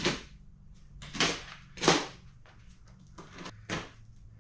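A long cardboard shipping box being torn open and its flaps flung flat: about five sharp slaps and cracks of cardboard, with rustling in between.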